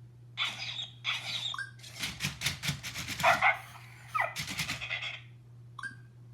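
WowWee CHiP robot dog playing its bark and yip sound effects through its speaker: a string of short barks over several seconds, with a quick falling yelp about four seconds in.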